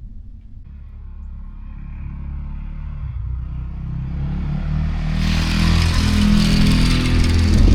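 A vehicle approaching and coming close, its engine and tyre noise growing steadily louder, with a rush of tyre hiss about five seconds in.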